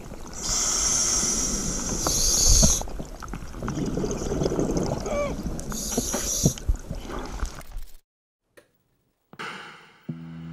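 Underwater camcorder audio of a scuba diver breathing through a regulator: hissing breaths and bubbling, gurgling exhalations. The sound cuts off suddenly about eight seconds in, followed by a short burst of static and a steady low drone near the end.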